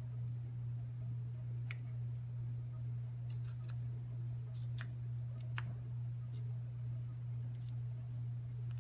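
A few light plastic-and-metal clicks as wired brass terminals are handled and seated in a 220-volt plug housing, most of them in the middle, over a steady low hum.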